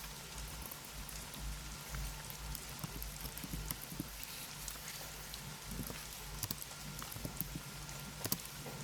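Computer keyboard typing: quick, irregular key clicks and taps, with a faint steady low hum underneath.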